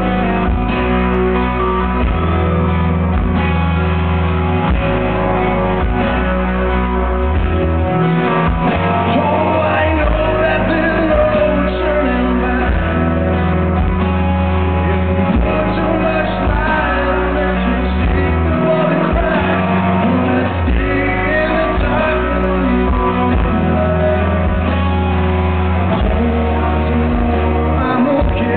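Live rock band playing amplified through a stage sound system: electric guitars and a deep bass line under a male lead vocal singing.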